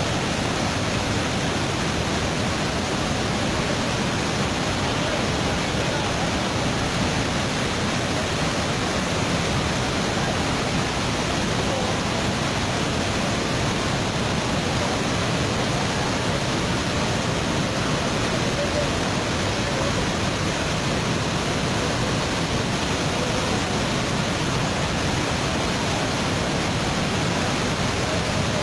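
Steady, loud rush of a swollen, muddy river in flood pouring through a channel and throwing up spray.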